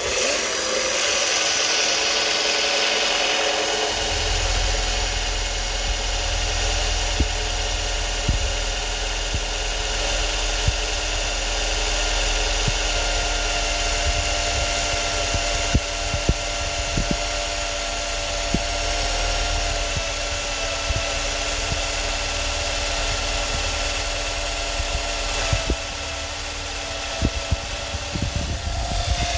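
Homemade table saw's electric motor switched on and running steadily, with a deeper rumble joining about four seconds in and scattered sharp clicks throughout.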